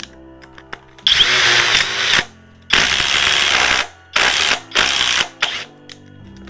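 Cordless impact driver run in bursts: two long pulls of the trigger of about a second each, then a few short blips.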